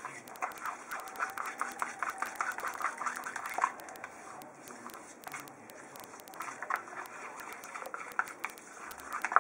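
Thick hair-mask paste of amla, neem and shikakai powders being stirred and worked in a bowl by hand: rapid, irregular small clicks and squelches, thinning out for a couple of seconds in the middle.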